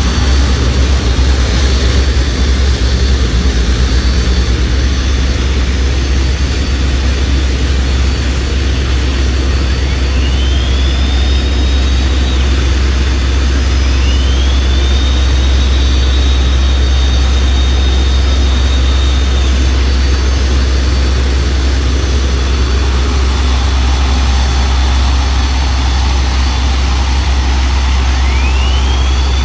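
Twin gas-turbine engines of a 6000 hp powerboat running with a steady heavy rumble. Three times a high whine rises and then holds for a few seconds as the turbines spool up.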